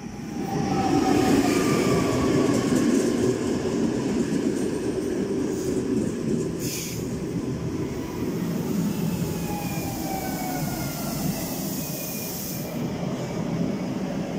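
Newag Impuls 45WE electric multiple unit passing close along the platform: a steady rumble of wheels on the rails, with thin whines that fall slowly in pitch. A short hiss about seven seconds in.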